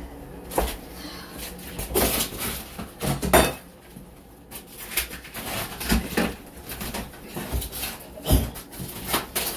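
Utility knife being drawn along a marked line in wall board: a run of irregular sharp scraping strokes and knocks. The cut is too shallow.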